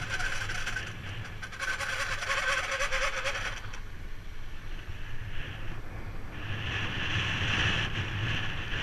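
Wind rushing over the microphone and tyres running on asphalt as a BMX bike coasts fast downhill. About a second and a half in, a buzzing, rattling sound with a wavering tone comes in for about two seconds, then stops.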